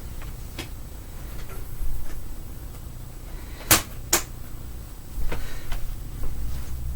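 Handling noise from hard plastic vacuum-cleaner parts: light knocks and rustles, with two sharp clicks about half a second apart midway through.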